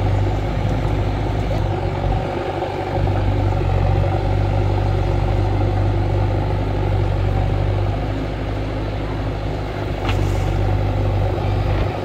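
JCB backhoe loader's diesel engine running steadily under load with a low drone, easing off briefly a couple of times. A single sharp click about ten seconds in.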